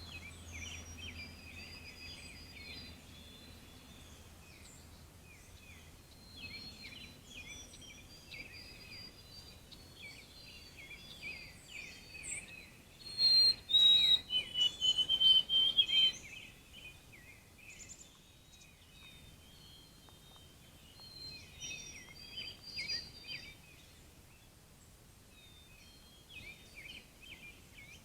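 Birds chirping and singing in a dense, continuous chorus of short calls and trills, with a louder run of calls about halfway through.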